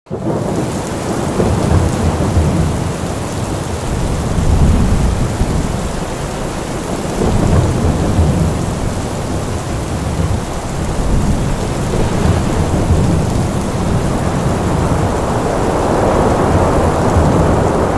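Thunderstorm: steady heavy rain with low rolling thunder swelling up every few seconds.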